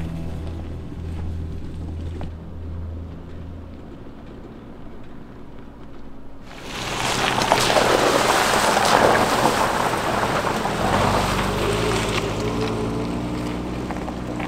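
A Subaru Forester drives through a shallow stony creek, throwing up a loud rush of splashing water that starts suddenly about halfway through and dies down a few seconds later. Its flat-four engine then hums low as it pulls away up the dirt track.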